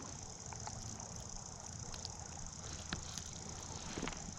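Steady rush of a flowing river, with a few faint clicks scattered through it.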